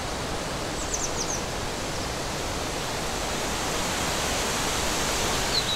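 Steady rushing noise of an outdoor nature ambience, with a few quick, high chirps about a second in and again near the end.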